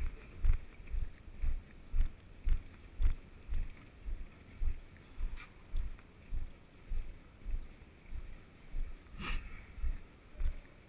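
Walking footsteps, dull low thuds about twice a second on a concrete floor, with one sharper click about nine seconds in.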